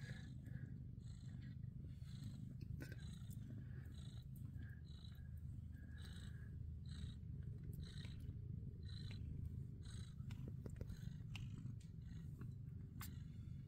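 Abyssinian mother cats purring steadily in a low, even rumble while nursing newborn kittens, with short faint high-pitched sounds recurring about once a second.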